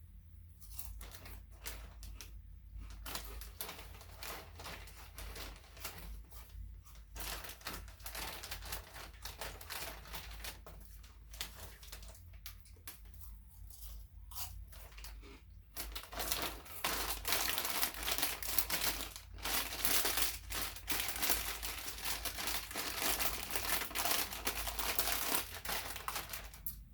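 A chip bag crinkling while crunchy oven-baked barbecue chips are eaten: a dense run of crackling and crunching that grows louder and busier about halfway through.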